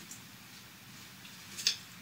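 Quiet room tone with one short, sharp hiss-like click about a second and a half in.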